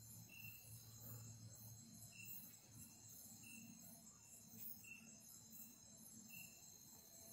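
Faint night chorus of crickets: a steady, high, pulsing trill, with short chirps repeating every half second to a second.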